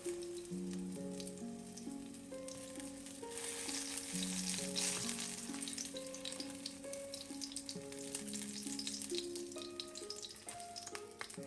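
Eggplant slices frying in hot oil in a pan, a steady sizzle that swells for a few seconds in the middle, with light clicks of a wooden slotted spatula turning and lifting the pieces. Soft background music with held notes runs underneath.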